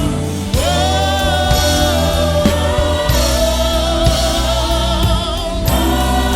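Gospel choir singing long held notes with vibrato over a band with a steady bass, moving to a new chord about half a second in and again near the end.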